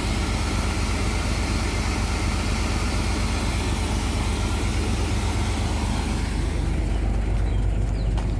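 Sand truck's diesel engine running steadily, a low even rumble.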